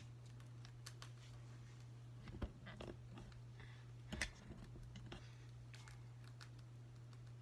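Pet rabbit gnawing at a natural chew toy: faint scattered clicks and crunches, with a couple of louder knocks, over a steady low hum.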